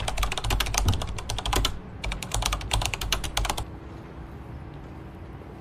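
Rapid clicking like keyboard typing, in two quick runs with a short break between them. It stops about two-thirds of the way in.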